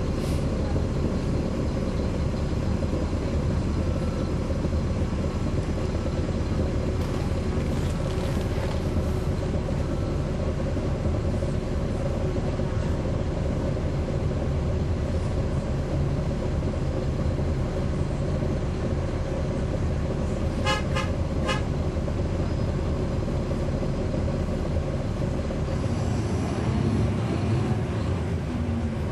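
Caterpillar C13 diesel engine of a NABI 416.15 transit bus running, heard from on board as a steady drone with a hum, the radiator fan on. About twenty seconds in comes a quick series of short beeps.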